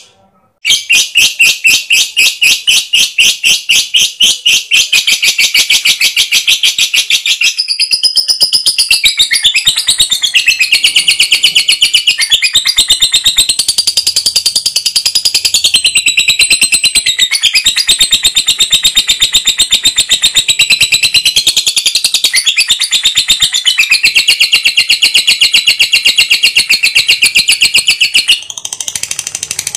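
Lovebird giving a long, fast, unbroken chattering trill (the 'ngekek panjang' prized in lovebird song contests): many high chirps a second in an even run, with one short pause near the end.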